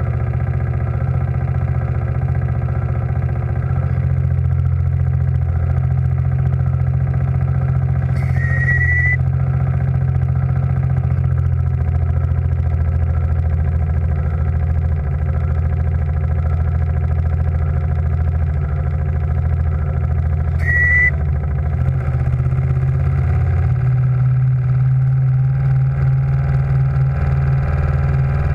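Steam launch's gas-fired steam plant running steadily, a continuous low hum whose deep tone shifts about 24 seconds in as the running changes. Two short high whistle tones sound about 8 and 21 seconds in, the first rising slightly.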